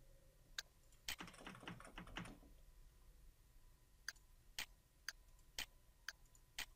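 Quiet clicks of a computer mouse and keyboard at a desk. There are single sharp clicks, then a quick rattle of clicks about a second in, and then single clicks roughly every half second through the second half.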